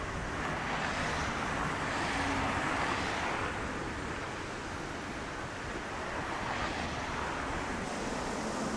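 A steady outdoor rushing noise that swells for a couple of seconds about a second in, then settles.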